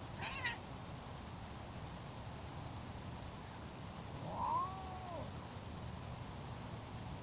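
Stray cats meowing: a brief call near the start, then a longer, louder meow about four seconds in that rises and falls in pitch.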